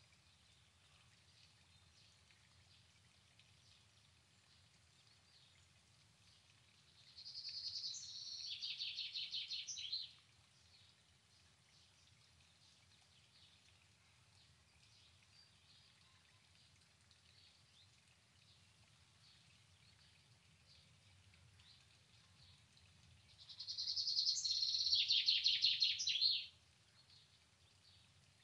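A songbird singing twice, each song a fast trill about three seconds long that drops lower in pitch toward its end, over faint steady low background noise.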